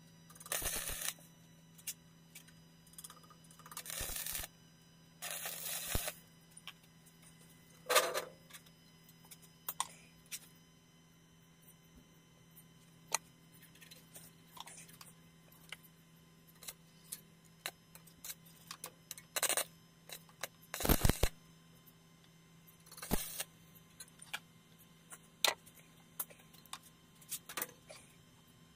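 Scrap steel parts clinking and clattering as they are handled on a metal workbench, with many sharp clicks and several short, loud bursts of about a second each. A steady low hum runs underneath.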